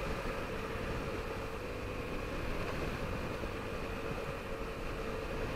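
Yamaha 125 cc motorcycle cruising steadily at road speed: a steady engine drone with a held tone, over wind and road rumble.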